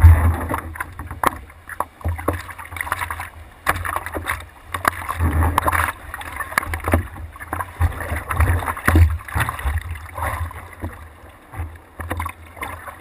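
Seawater sloshing and slapping against a surfboard, with irregular splashes of hands in the water and a low rumble of water against the camera.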